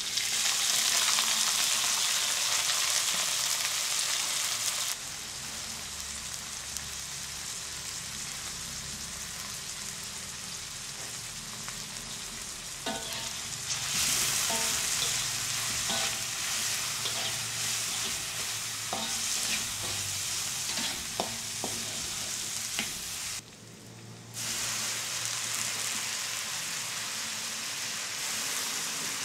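Sliced shallots, garlic and red chillies dropped into hot oil in a wok, sizzling loudly at once, then frying steadily while a metal spatula stirs them, its scrapes against the wok heard as a run of clicks. The sizzle drops briefly, then picks up again.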